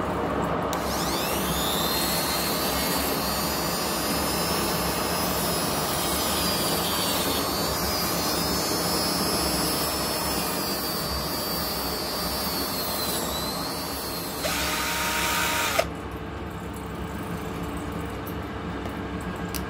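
Small handheld rotary tool spinning up with a rising high whine, then running steadily as its sanding band deburrs the edge of a steel nozzle guide vane ring turning in a lathe, its pitch wavering under the load. Near the end the sound turns rougher for a moment and then cuts off suddenly, leaving a lower machine hum.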